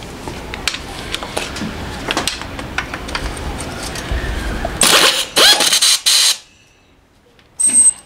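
Small metal clicks and scrapes of a wrench working a 9/16 nut on a Harley-Davidson Sportster's rear engine mount, then several loud metal clatters about five to six seconds in.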